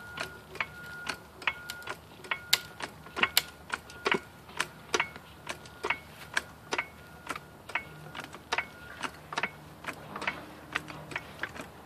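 3-ton steel hydraulic floor jack being pumped by its handle, with regular sharp clicks and clacks about twice a second. The jack is lifting a fence post and its concrete footing out of the ground by a steel stake through the post.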